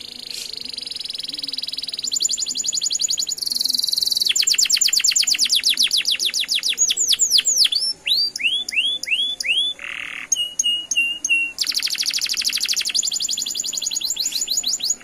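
Domestic canary singing a long song of rapid rolling trills and buzzy rolls. About halfway through the trills break into a few slower curved whistles and short notes, then the fast trilling picks up again.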